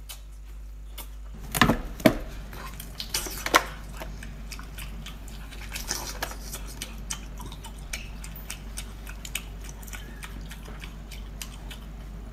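Close-miked eating sounds: a few loud, sharp smacks in the first four seconds, then steady wet chewing and lip smacks as whole boiled octopus is bitten and chewed.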